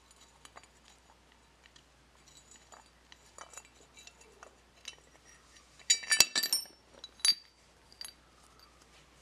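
Small metal parts and tools clinking and tapping against each other, with a loud cluster of ringing metal clinks about six seconds in and another single ringing clink about a second later.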